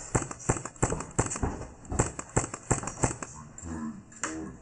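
Footsteps on a hard floor at a quick, even pace, about three a second, stopping near the end as voices start.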